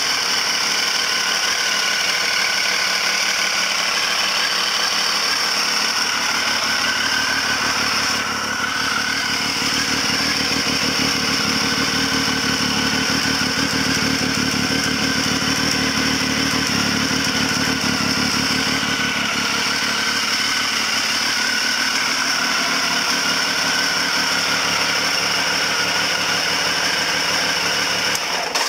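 Triumph Speed Triple 955i's fuel-injected inline three-cylinder engine idling steadily through a carbon-fibre slip-on silencer. This is its first run after a split idle air control valve vacuum hose was repaired.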